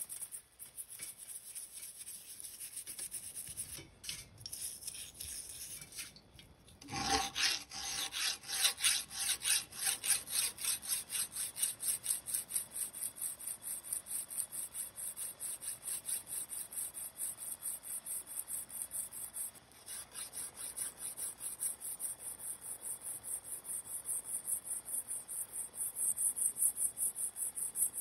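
Hand file rasping back and forth over the steel head of a claw hammer clamped in a vise, in a steady rhythm of even strokes. The first several seconds hold fainter scrubbing of the rusty head in a dish of liquid.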